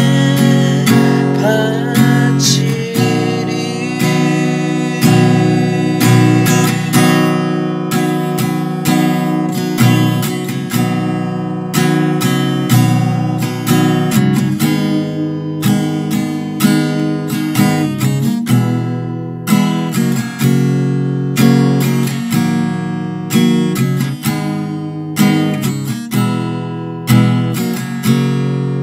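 Acoustic guitar strumming chords in a steady rhythm: an instrumental passage of a Korean gospel song.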